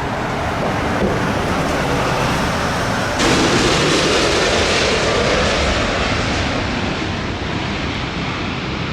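Loud, steady outdoor roar of airport noise, jumping louder and hissier about three seconds in, then slowly easing.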